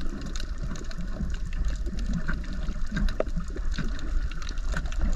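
Underwater sound through a submerged camera: a steady, muffled low rumble of water with scattered short clicks and crackles.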